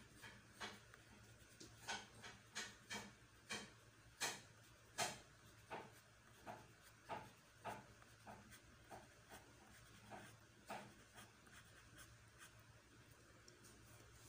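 Colored pencil scratching on paper in short, repeated shading strokes, about one or two a second, growing fainter in the second half.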